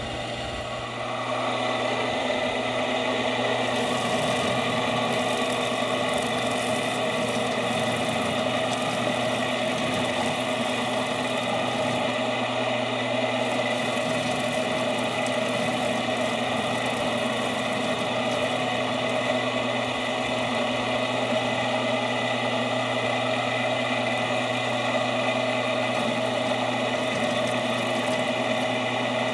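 Belt-driven rubber-finger chicken plucker starts up about a second in and runs with a steady mechanical hum and whir while a chicken is held against its spinning fingers to strip the feathers.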